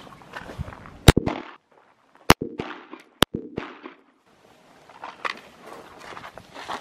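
Three 9mm pistol shots from a Glock 19 Gen 5, about a second apart, each with a short echo.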